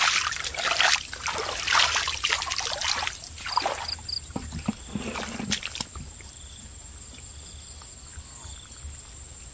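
Muddy water splashing and sloshing as a woven bamboo basket is scooped through a shallow muddy pond, with water trickling off. It dies down after about three seconds into a few squelches of wading in mud, then a quiet outdoor background with a thin, steady high insect whine.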